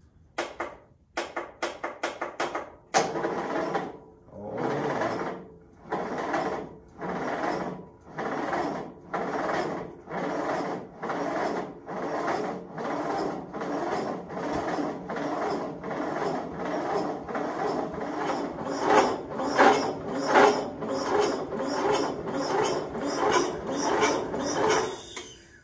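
Wheel Horse lawn tractor's electric starter cranking the engine over slowly, in a steady beat of surges a bit faster than one a second that quickens slightly toward the end, without the engine catching. A quick run of short clicks and bumps of the starter comes first.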